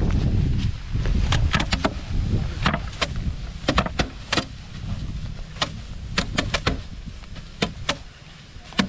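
Rice sheaves slammed by hand against slatted wooden threshing boards: irregular sharp whacks from several threshers, sometimes two or three in quick succession. Wind rumbles on the microphone, heaviest in the first second.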